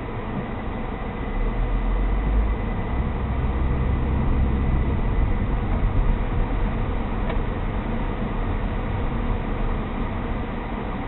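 Car driving, heard from inside through a dashcam: a steady low road and engine rumble that grows louder about a second in and eases off after about seven seconds. A faint steady high whine runs under it.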